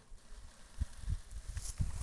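Rustling in dry leaves and brush with a few soft low thumps, the rustle growing louder near the end.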